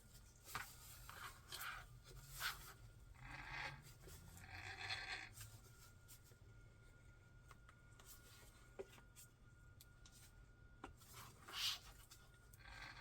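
Faint handling sounds of unboxing: short scratchy rustles and rubbing of packaging, with a few light clicks or taps of plastic parts scattered through.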